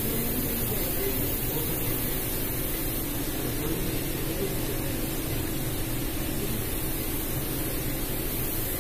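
Steady hiss with a faint low hum underneath, unchanging throughout, with no distinct knocks or voices.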